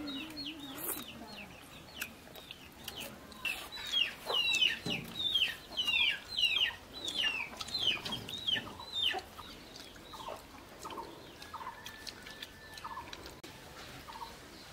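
Chickens clucking and calling. A run of high calls, each falling in pitch, comes about two a second from about four to nine seconds in, and shorter, lower clucks follow after it.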